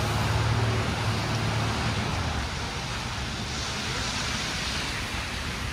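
City street traffic: a vehicle's low engine hum fades over the first two seconds as it passes, leaving a steady hiss of road noise.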